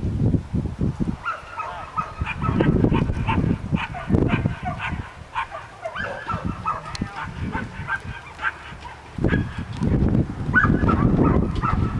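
Geese honking in many short repeated calls, over a low, uneven rumble.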